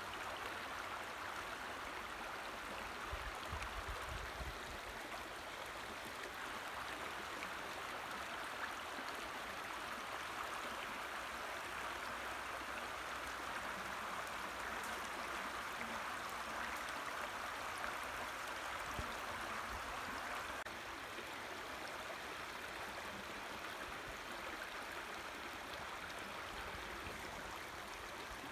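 Shallow creek running over rocks and stones: a steady rush of moving water, easing slightly about three quarters of the way through.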